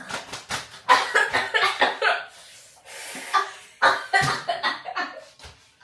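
Voices laughing, coughing and breathing sharply in short broken bursts, a reaction to gulping down a burning homemade health shot.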